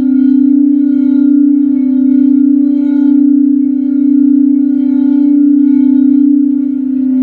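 Tibetan singing bowl sung by circling its rim: a steady low hum with fainter higher overtones, swelling and fading about once a second.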